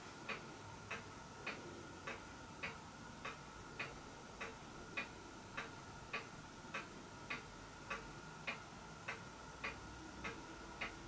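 Faint, regular clock-like ticking, a little under two ticks a second, over a faint steady high hum.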